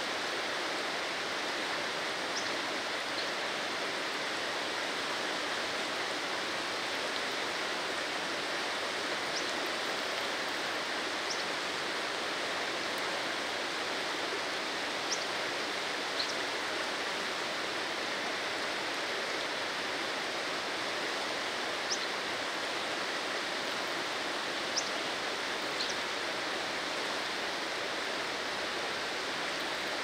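Rushing water running in a steady, even hiss with no breaks. About eight short, high ticks are scattered through it.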